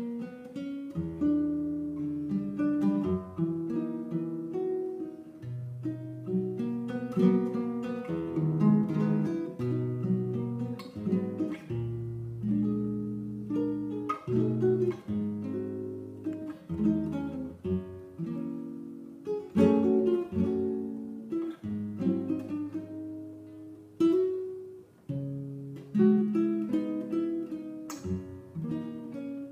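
Solo classical guitar fingerpicked, playing a melody over bass notes and chords.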